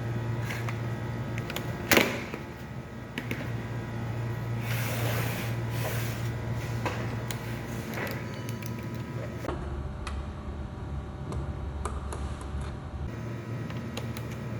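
Plastic laptop case being handled and pried at: scattered clicks and scraping, with one sharp loud click about two seconds in. A steady low hum runs underneath.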